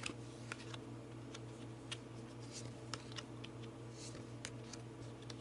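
Tarot cards being handled on a table: faint, irregular light clicks and taps, over a steady low hum.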